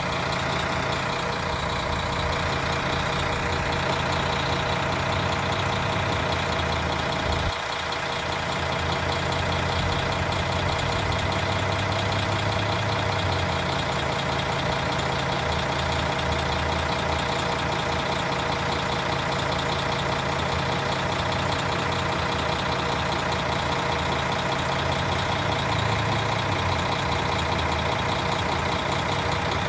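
O-Train diesel railcar engines idling steadily while the train stands at the station.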